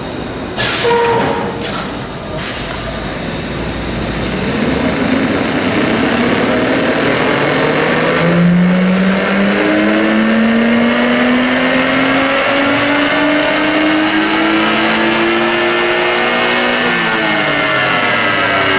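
Acura NSX twin-turbocharged V6 pulling hard, its pitch climbing steadily through one gear, dropping suddenly at an upshift near the end and climbing again, as in a dynamometer test run. A few sharp knocks come in the first couple of seconds.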